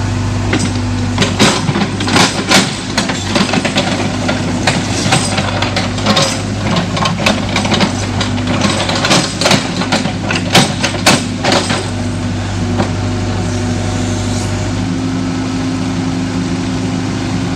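Tracked hydraulic excavator's diesel engine running steadily while it digs, with a string of sharp clanks and knocks from the bucket and boom working the ground for the first twelve seconds or so. After that only the engine is heard.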